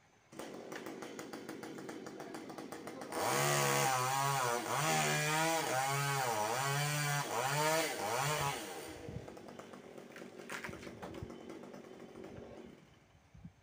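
Two-stroke chainsaw running at idle, then revved to full throttle for about six seconds, its pitch sagging and recovering about once a second. It then drops back to idle and cuts off near the end.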